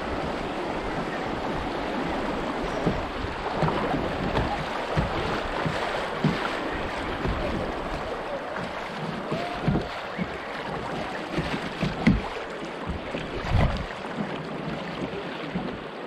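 Fast, choppy river water rushing and lapping around a drifting kayak's hull, broken by irregular low thumps.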